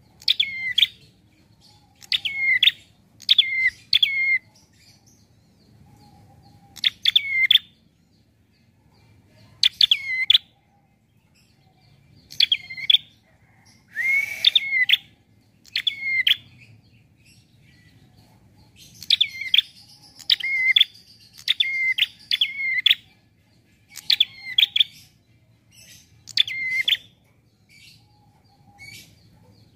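A prenjak (small Indonesian warbler) calling repeatedly: short, sharp chirps that come singly and in quick runs of two to four, about twenty in all. One louder, harsher call falls near the middle.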